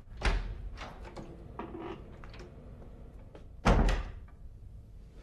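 A door handled twice: a thud just after the start and a louder, heavier thud a little before four seconds in, with a few lighter knocks between.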